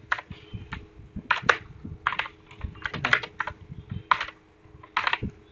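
Typing on a computer keyboard: irregular keystrokes, with a brief pause about four seconds in.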